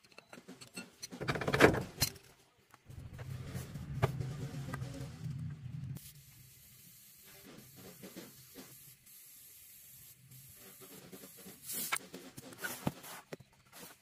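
Air hissing steadily from a tyre valve as a pressure gauge on an air hose is held to it. Before it come knocks and handling noise, and scattered clicks follow near the end.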